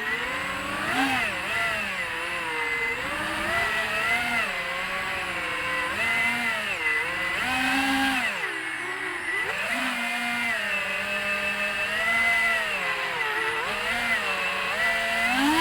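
FPV quadcopter's brushless motors and propellers whining. The pitch swoops up and down continuously with throttle changes, dropping low twice near the middle and rising sharply at the end.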